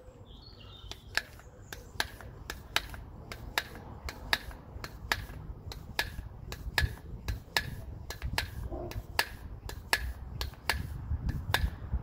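A long run of sharp, uneven clicks, about two to three a second, starting about a second in, over a low background rumble.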